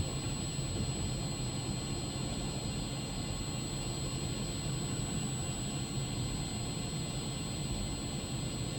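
Heavy machine's engine running steadily, heard from inside the cab: an even low drone with a faint steady high whine over it.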